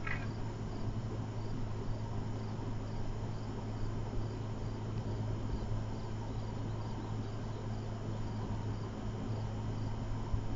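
Insects chirping in an even, high-pitched rhythm, over a steady low hum.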